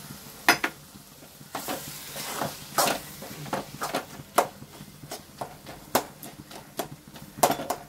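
Metal spoon stirring and scraping sautéing onions and tomatoes in a metal kadai: repeated sharp clinks of spoon on pan over a faint sizzle.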